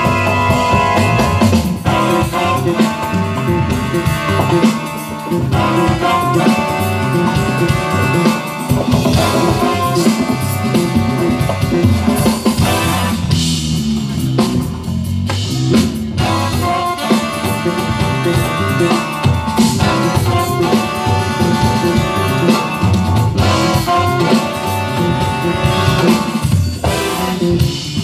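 Live jazz band playing, with drum kit and electric bass guitar prominent and keyboard in the mix.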